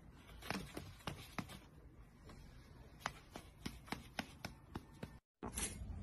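Faint, quick taps and rustles, about three a second at their busiest, as a cat swats at a hand with its paw.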